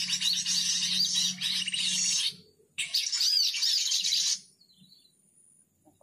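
Bird-call lure recording (crecetan) of many small birds chattering and chirping rapidly, played loudly to draw birds in for trapping. It stops abruptly about two seconds in, starts again half a second later, and cuts off sharply about four and a half seconds in.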